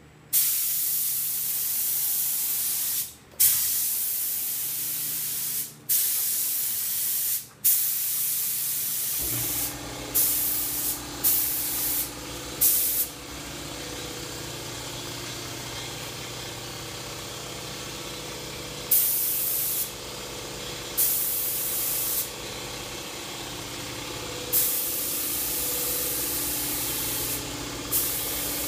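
Air-powered paint spray gun spraying enamel onto a truck body, in long stretches of spray noise broken by brief pauses between trigger pulls, with shorter pulls later. About nine seconds in, a steady machine hum starts underneath and keeps going.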